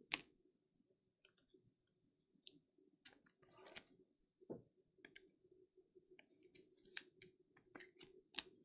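Faint, scattered clicks and brief rustles of glossy trading cards being handled and sorted by hand.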